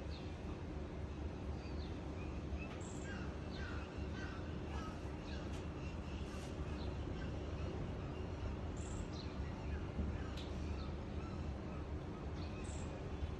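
Birds calling in the background, short scattered chirps and calls, over a steady low rumble.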